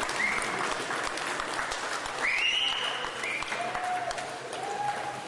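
Audience applauding, with several long, high cheers rising over the clapping, the strongest about two seconds in.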